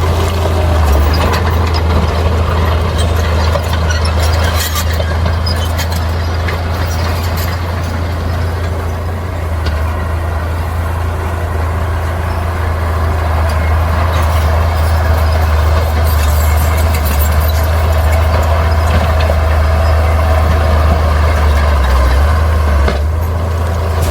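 Heavy diesel earthmoving machinery running steadily: a constant deep engine drone with scattered clicks and clanks over it.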